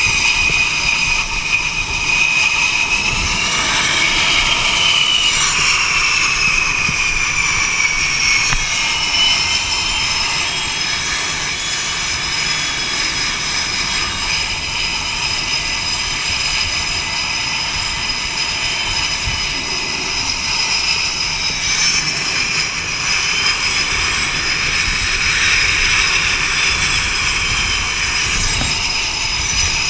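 F/A-18 jet engines running: a steady high whine that twice glides up and back down in pitch, over a constant rumble.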